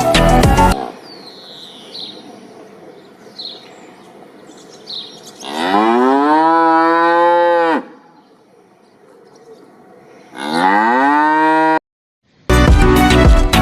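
A cow mooing twice, each a long call that rises in pitch and then holds, over faint bird chirps. Loud music cuts off under a second in and returns near the end.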